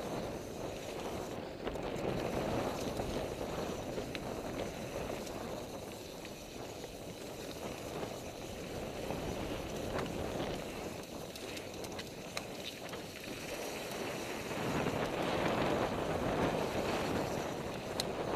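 Mountain bike descending a dirt trail at speed: wind rushing over a helmet-mounted microphone mixed with tyre noise on the dirt and occasional clicks and rattles from the bike, growing louder near the end.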